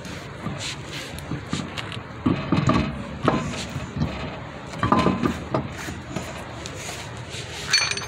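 Alloy wheel and tire being lifted and fitted back onto the car's hub studs: a string of irregular knocks and scrapes as the rim shifts against the hub, with a short ringing metal clink near the end.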